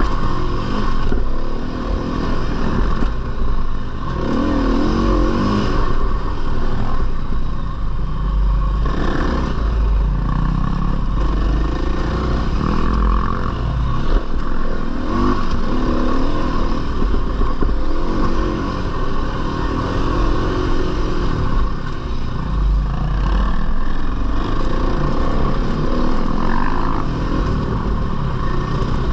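Single-cylinder four-stroke dirt bike engine revving up and down again and again while riding, over a constant low rumble.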